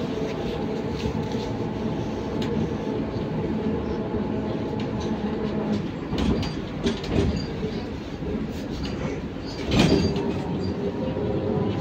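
Interior riding noise of a ZiU-682V-012 trolleybus: a steady rumble with the whine of the traction drive, which fades about halfway and rises in pitch again near the end as the trolleybus picks up speed. Clicks and rattles of the body throughout, and a loud knock about ten seconds in.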